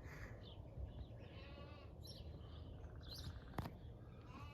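Faint bleating from young farm animals, with small birds chirping and a single sharp click a little over halfway through.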